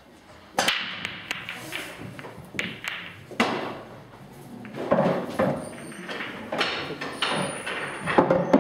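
English pool break: a sharp crack as the cue ball smashes into the rack of reds and yellows about half a second in, followed by scattered clicks and knocks of balls colliding and hitting the cushions, with a loud knock about three seconds in.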